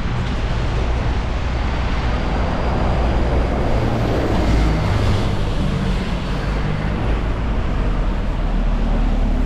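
City street traffic: a steady rush of passing vehicles, with low wind rumble on the microphone. A faint high whine runs through the middle few seconds.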